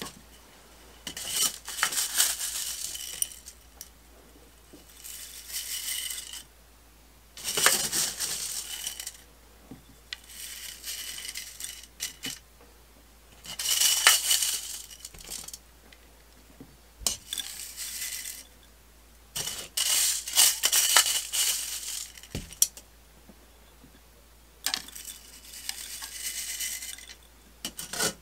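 Gritty bonsai soil mix, with hard white and brown grains, poured into a ceramic bonsai pot in about eight short pours, each a second or two of rattling and hissing grains with pauses between.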